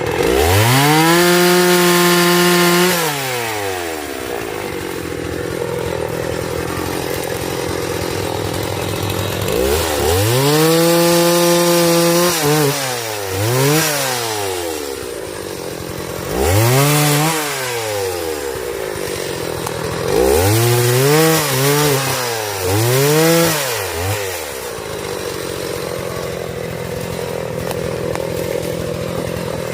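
Two-stroke chainsaw revved up hard several times and dropped back to idle between: a long rev near the start, another about a third of the way in, then several shorter blips.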